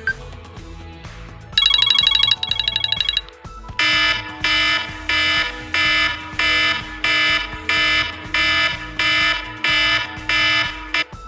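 iPhone ringtones playing: a rapid pulsing electronic beep for about a second and a half, then, after a short gap, a repeating alarm-like beep pattern at about two beeps a second over a sustained low tone.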